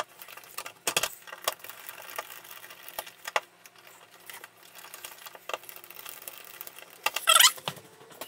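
Hand screwdriver driving the mounting screws of a new duplex receptacle into its electrical box: scattered small metallic clicks and scrapes, with a louder scraping rustle about seven seconds in.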